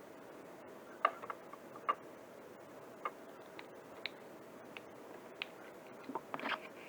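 Scattered light clicks and taps of small plastic parts being handled, at irregular intervals, with a small cluster near the end. A faint steady hum runs underneath.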